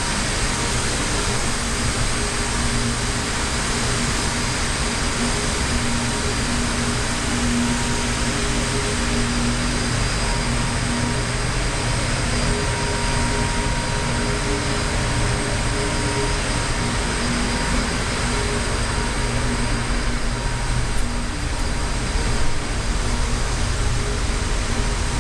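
Steady mechanical drone: a constant rushing noise with several unchanging hum tones running through it.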